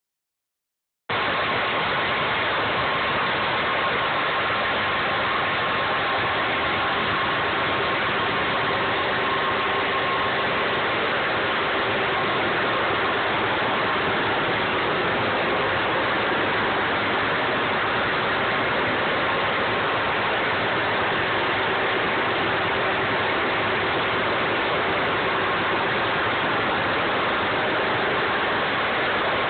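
A 20,000 psi water jet blasting paint off a surface starts about a second in. It makes a loud, steady hiss, with a faint hum from the engine-driven pump beneath it.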